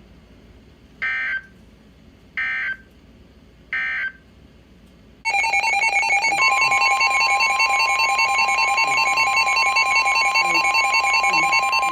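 NOAA Weather Radio emergency alert signalling: three short bursts of warbling digital SAME data tones about 1.4 seconds apart, the end-of-message code closing the previous warning. Then a loud, continuous alert tone starts about five seconds in, with a second steady pitch joining about a second later, the attention signal that opens the next warning.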